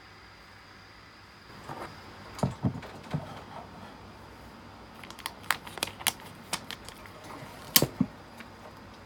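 Irregular clicks and knocks of a plastic cleansing-water bottle being handled and set on a tabletop, starting about a second and a half in, with the sharpest knock near the end.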